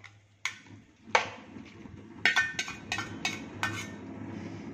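Metal slotted spoon clinking and scraping against a small steel bowl as ground mustard paste is knocked off into the pan: scattered sharp clinks, coming quickest around two to three and a half seconds in, over a low steady hum.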